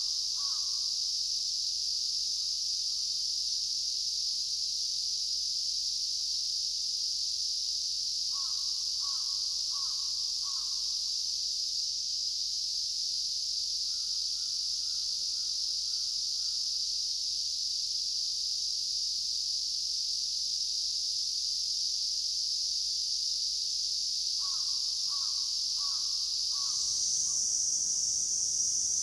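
A crow cawing in three runs of four or five harsh caws, over a steady high-pitched insect drone that shifts higher near the end.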